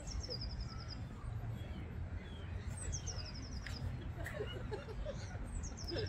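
A small songbird sings a short, high trill that steps down in pitch, repeating it about every three seconds, over a steady low background rumble.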